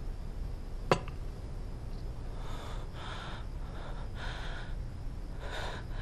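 A porcelain bowl set down on a wooden nightstand with one sharp clack, then a person drawing several heavy, gasping breaths.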